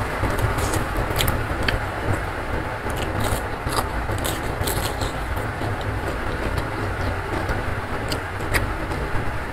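Close-miked eating by hand: chewing and wet mouth clicks, with fingers picking through rice and side dishes, heard as many short sharp clicks over a steady low rumbling background noise.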